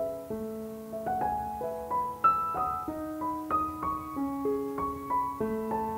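Solo piano music: a melody of single notes over held lower notes, about two new notes a second.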